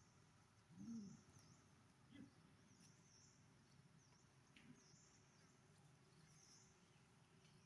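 Near silence: faint outdoor ambience, with quiet high chirps repeating about once a second and a soft low call about a second in.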